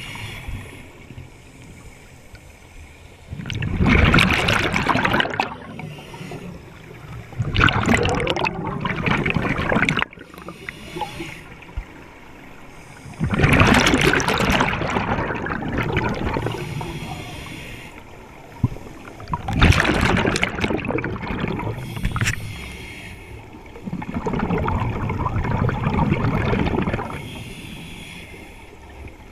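Underwater scuba breathing heard through the camera housing: the regulator's exhaust releases five loud bursts of bubbling a few seconds apart, one per exhalation, with quieter stretches between them.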